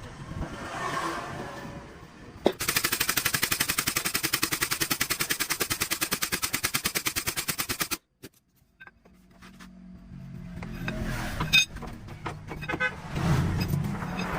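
Pneumatic tool hammering rapidly and evenly, about ten blows a second, for roughly five seconds, then cutting off suddenly. Afterwards a low hum and a few metallic clicks.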